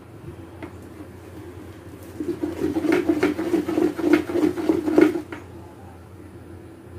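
A spoon stirring and scraping thick cake batter around a mixing bowl, with several sharp knocks of the spoon against the bowl, for about three seconds in the middle.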